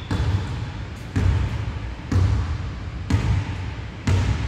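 Basketball being dribbled on a hardwood gym floor, about one bounce a second, each bounce echoing in the hall.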